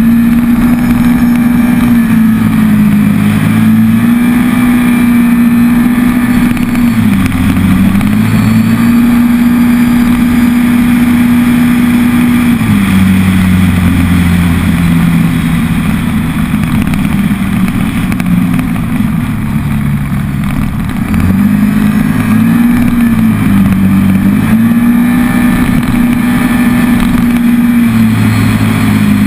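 2013 Can-Am Maverick side-by-side's V-twin engine running at steady high revs while driving. Its pitch drops as the throttle eases off: briefly about a quarter of the way in, for several seconds in the middle, and twice more near the end.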